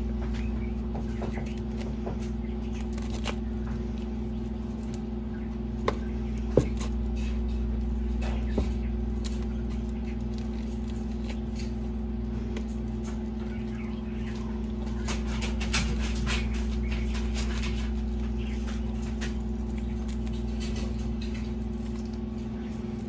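Quail skin being peeled off the carcass by hand, feathers still attached: soft, irregular crackling and small ticks, with a few sharper clicks, over a steady low hum.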